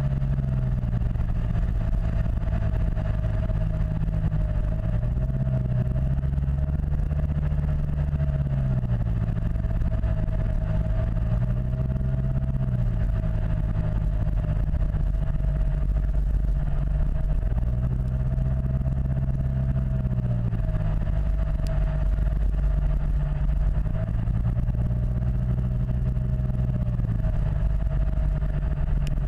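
Yamaha T-Max XP500 maxi-scooter's 500 cc parallel-twin engine running under way, its note rising and falling gently several times with the throttle. A steady thin whine sits above it throughout.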